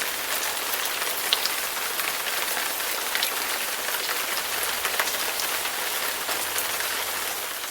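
Steady rain falling, an even hiss with scattered individual drops ticking through it, fading out near the end.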